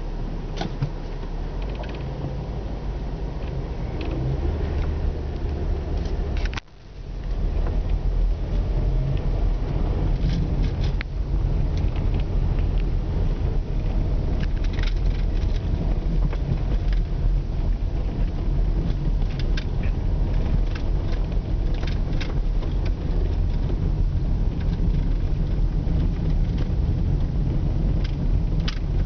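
Vehicle driving slowly on an icy, snow-covered road, heard from inside the cab: a steady low engine and tyre rumble with scattered light clicks. The sound drops out briefly about six and a half seconds in, then the rumble comes back a little louder.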